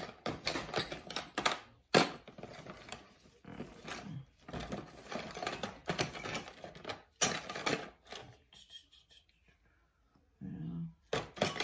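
Small metal cake-decorating piping tips clinking and clattering as they are rummaged through in search of a big round tip, a quick run of clicks that stops about eight seconds in.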